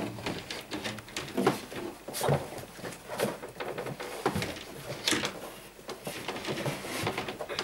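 Five-week-old Airedale Terrier puppies scrambling in a wooden whelping box: irregular scratching of claws and small knocks against the wood and the blanket.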